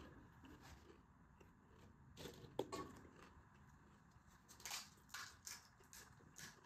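Faint, short crackles of crisp, hollow pani puri shells being cracked open with a finger, a few scattered crunches.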